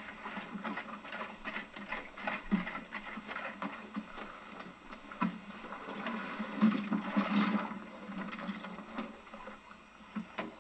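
Hand oyster tongs being worked over the side of a boat: irregular knocking and clattering of the wooden shafts and the metal tong head, over a steady hiss.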